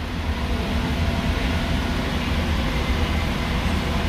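JFK AirTrain car running along the guideway, heard from inside the car: a steady low rumble with a faint hum above it.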